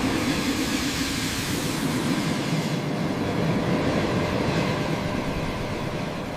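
A train passing on railway tracks, a loud, dense rumble that eases off slightly near the end.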